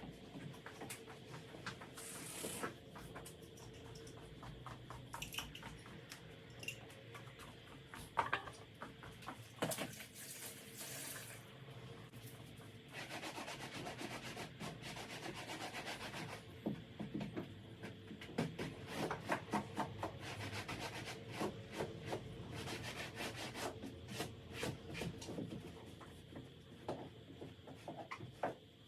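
A cloth wiping and rubbing a household surface in repeated, irregular strokes, with a few short hissy bursts.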